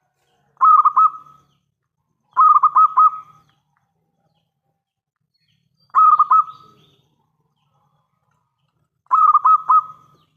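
Zebra dove (perkutut) cooing: four short phrases of quick warbling notes, each under a second long, spaced a few seconds apart.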